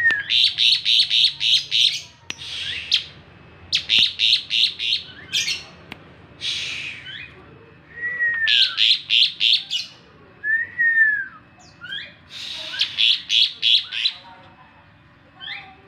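Asian pied starling singing. It gives four runs of rapid, sharp chattering notes, each about two seconds long, separated by single rasping calls. Near the middle come two clear whistles that rise and then fall.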